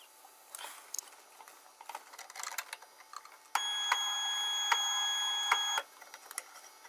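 Light plastic-on-wood handling clicks as a 3D-printed PLA hook is seated in the test fixtures, then the tensile test machine's drive motor runs with a steady whine for about two seconds, starting and stopping abruptly.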